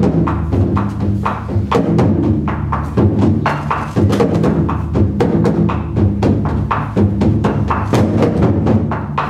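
Japanese taiko drums playing a quick, uneven run of strikes, with sharp wooden clicks among the deeper drum hits over a low, sustained ring.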